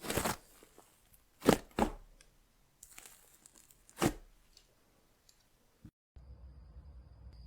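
Slime being squeezed and pulled apart by hand, giving a few sharp crackling crunches about a second apart, then going quiet. About six seconds in, the sound cuts out and a faint steady hum with a thin high whine starts.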